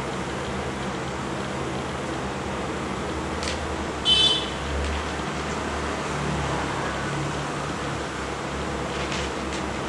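Steady low background rumble, with one short, high, harsh call about four seconds in that is the loudest thing heard.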